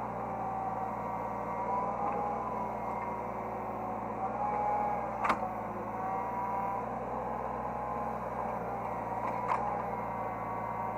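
Hydraulic excavator's engine and hydraulic system running steadily, with a whine that rises and falls as the controls are worked. Two sharp knocks, about five seconds in and again near the end.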